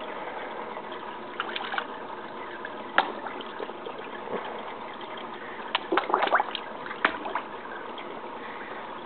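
Koi tank water trickling steadily, with a few short sharp splashes at the surface about three seconds in and a cluster around six to seven seconds as the koi break the surface.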